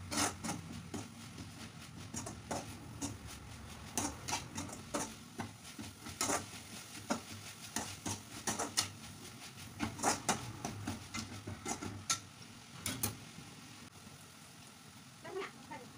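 Metal spoon stirring chopped banana flower in a metal pan, clinking and scraping against the pan in irregular strokes, with fewer strokes for the last couple of seconds.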